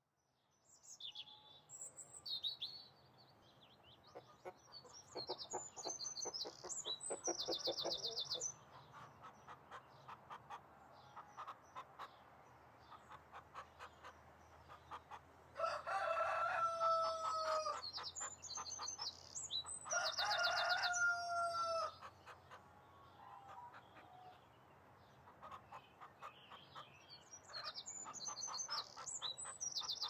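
Farmyard ambience: small birds chirping throughout over hens clucking, with a rooster crowing twice a little past the middle, each crow a long held call that drops at its end.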